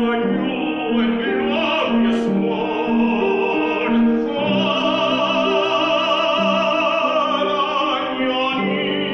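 A man singing in operatic style with vibrato, accompanied by a grand piano playing regularly repeated low notes. About four seconds in he holds one long note, which he releases near the end.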